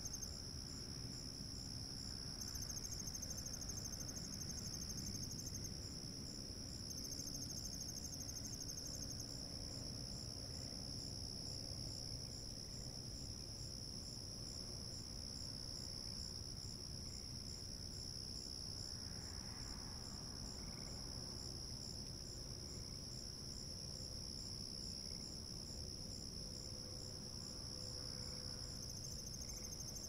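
Night chorus of crickets and other insects: a steady, high-pitched trilling that never stops, with a second, higher pulsing trill that comes in and drops out for a few seconds at a time.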